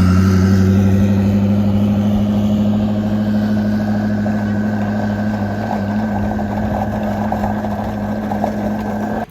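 Koenigsegg twin-turbo V8 idling steadily, its note slowly getting quieter. A thin, steady high whine joins it about three seconds in.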